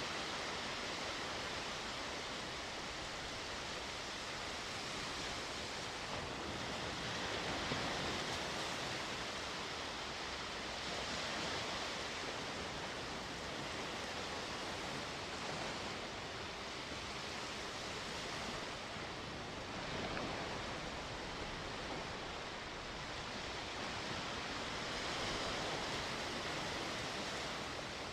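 Sea waves washing onto the shore: a steady rush of surf that swells and eases every few seconds.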